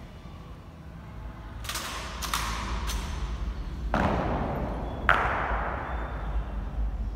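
Sharp clacks of honour-guard rifle drill, three quick ones, then two loud stamps of boots or rifle butts about a second apart, each ringing out in the echo of a large stone hall.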